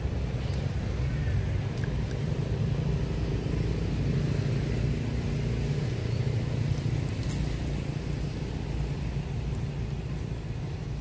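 Low, steady rumble of a motor vehicle's engine passing off-screen. It swells slightly in the middle.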